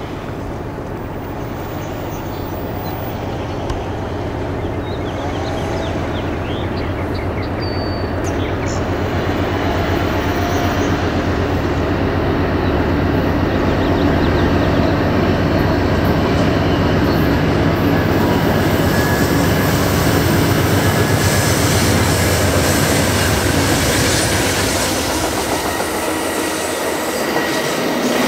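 Amtrak passenger train passing: the diesel engines of its GE Genesis P42 locomotives drone, growing louder as they approach. Then the steady rumble and wheel-on-rail noise of bilevel Superliner cars rolling by, with some light wheel squeal.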